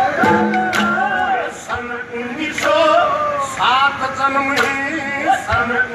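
Male Haryanvi ragni singer's voice over a PA, singing long, wavering drawn-out notes, with a few drum strokes from the accompanying dholak.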